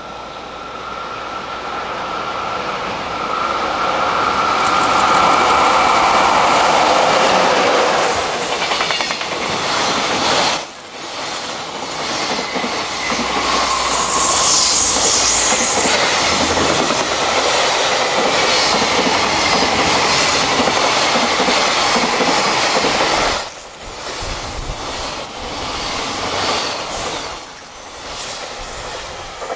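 A container freight train, hauled by an electric locomotive, passing at speed: a loud running roar with wheels clattering on the rails. It builds over the first few seconds as the train approaches, holds as the wagons stream by, and fades near the end.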